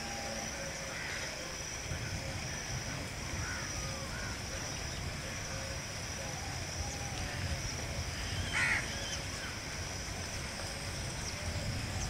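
Birds in a tree giving faint short calls, with one louder, harsh call about two-thirds of the way through. A steady high-pitched whine and a low rumble run underneath.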